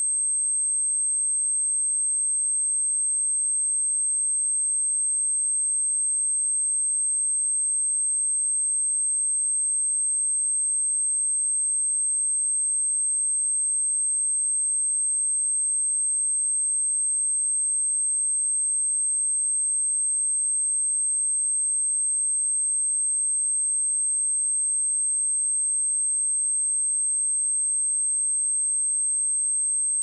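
A steady, high-pitched 8351 Hz sine tone, a single pure pitch at an unchanging level, played as a speaker test tone meant to shake water and dust out of a speaker.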